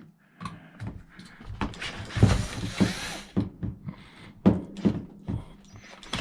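Hands working at a jump-starter pack's battery and plastic housing: a string of knocks and clicks, with a stretch of scraping about two seconds in, as the battery is pulled and pried at without coming free.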